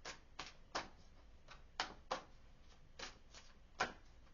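Tarot cards being shuffled by hand, a string of short, sharp taps about three a second with a brief gap about a second in.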